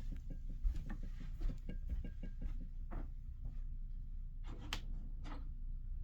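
A quick run of light knocks and clicks over a low steady hum, thinning out to a few scattered taps after about two and a half seconds.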